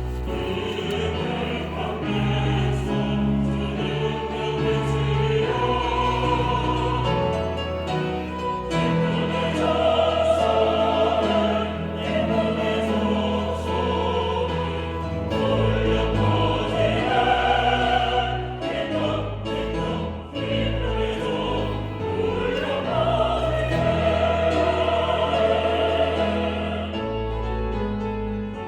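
Church choir singing an anthem in sustained, full chords over instrumental accompaniment with a deep, held bass line.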